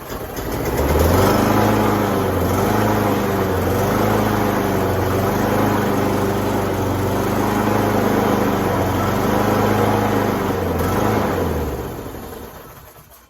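Kawasaki FJ180V single-cylinder mower engine running after a cylinder-head replacement: it comes up to speed about a second in, runs with a slight surge in its speed, then is shut off and winds down near the end. The owner puts the surging down to a carburettor main jet that wants cleaning.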